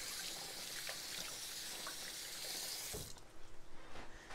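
A kitchen tap running in an even hiss, shut off abruptly about three seconds in, followed by a short low thump.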